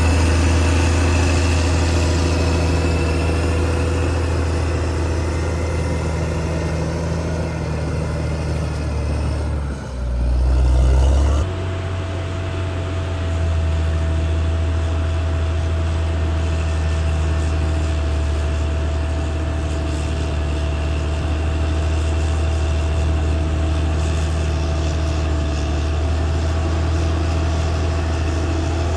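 Caterpillar D6R XL bulldozer's diesel engine running with a steady, deep drone, with a brief louder low surge about ten seconds in, after which the engine note carries on.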